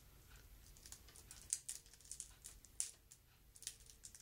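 Faint, scattered light clicks and taps of a card game's square cards and cardboard tin insert being handled.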